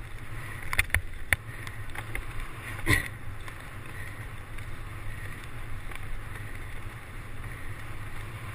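Mountain bike rolling fast over bumpy grass, heard from a handlebar-mounted camera: a steady rush of wind on the microphone with a low rumble from the tyres. Sharp rattles and knocks from the bike and its mount come about a second in and again near three seconds.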